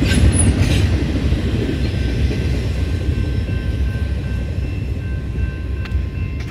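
Rumble of a freight train's last boxcar rolling past and fading as it moves away, with a couple of sharp wheel clicks in the first second. Steady high ringing tones run underneath as the rumble dies down.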